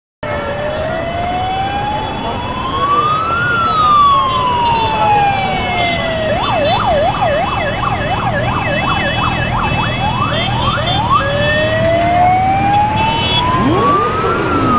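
Siren sounding a slow wail that rises and falls over about six seconds, switching to a fast yelp for about four seconds, then rising into a wail again, over the steady rumble of motorcycle engines.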